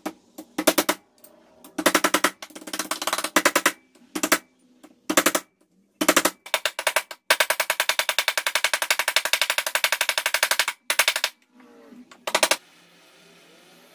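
Small hammer tapping copper over a bench vise, shaping the metal: runs of quick, sharp metallic strikes, the longest a rapid string of about four seconds, stopping about a second before the end.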